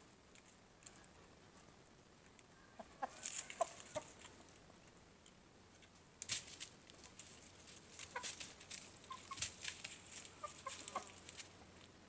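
Rooster giving short, soft clucks, mixed with sharp clicking taps in a cluster about three seconds in and again through most of the second half.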